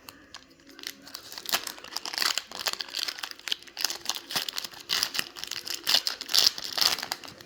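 Plastic wrapper of a 10-card baseball card hobby pack being torn open and crinkled by hand: a dense run of crackles that starts about a second in.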